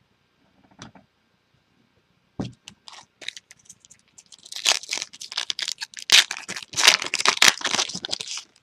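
Trading-card pack wrapper being torn open and crinkled, a dense crackling that grows over the last few seconds, after a single soft knock about two and a half seconds in.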